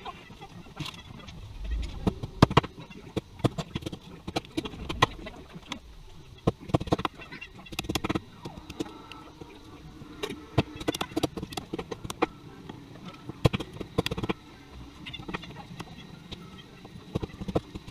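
A meat cleaver chopping turkey on a wooden cutting board: irregular sharp knocks, some much harder than others.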